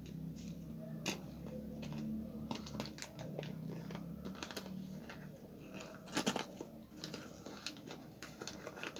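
Gift wrapping paper crinkling and crackling as a present is unwrapped by hand, with irregular crisp crackles throughout and a louder burst of crackling about six seconds in.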